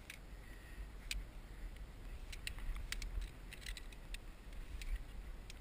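Low wind rumble on the microphone, with scattered light clicks and rustles from climbing rope and metal gear being handled.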